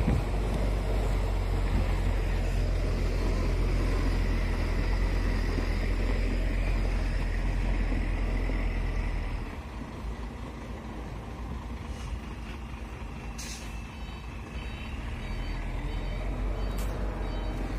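Heavy truck's diesel engine running with a deep, steady drone that drops off about halfway through. Later comes a short hiss, then a string of short high beeps from a reversing alarm.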